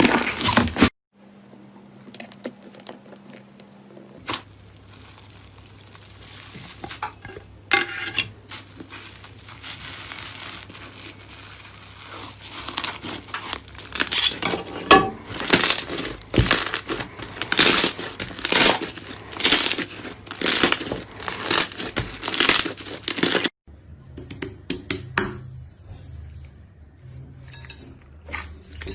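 Slime being pressed and pulled by hand, giving a series of crinkly crackles and sticky pops, with the sound cutting off abruptly twice as one take gives way to the next.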